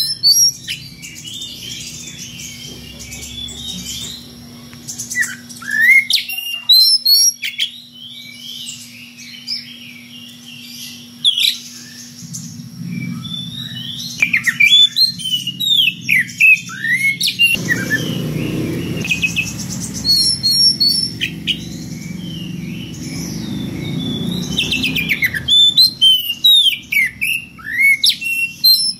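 Oriental magpie-robin (kacer) singing loudly in clusters of quick, varied whistles and chirps, with short pauses between phrases. A low steady hum runs underneath for much of the middle.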